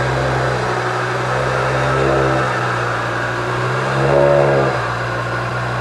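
Ford Focus RS Mk2's turbocharged five-cylinder engine running through its exhaust, revved briefly twice with the pitch rising and falling each time.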